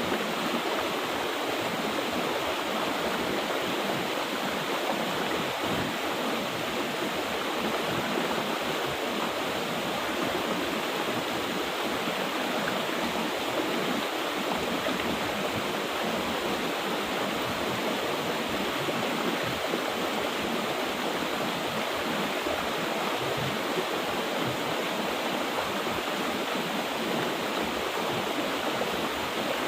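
Mountain river water flowing in a steady, even rush.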